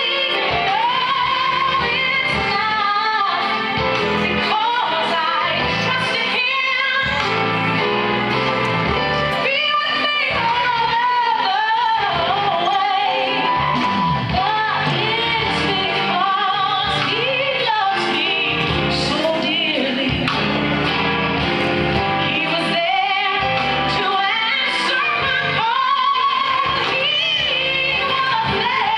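A gospel song with a woman singing lead over instrumental backing, her held notes wavering with vibrato.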